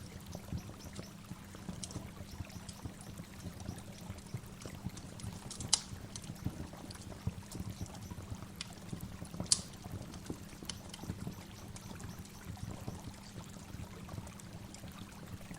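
Waterfall: water pouring and trickling in a steady rush, with two sharp clicks or splashes standing out about six and nine and a half seconds in.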